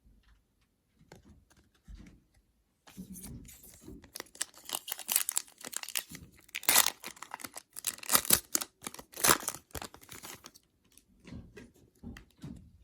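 A foil trading-card pack wrapper being torn open and crinkled: a dense run of crackling tears and rustles lasting about seven seconds, with softer handling noises before and after.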